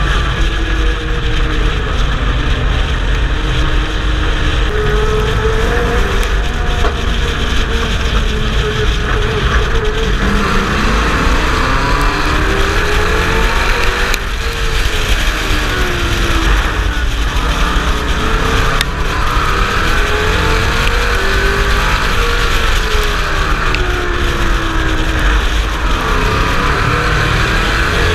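Pro Truck racing engine heard on board at full race pace, loud and unbroken, its note climbing and dropping back again and again as it accelerates and eases off around the track.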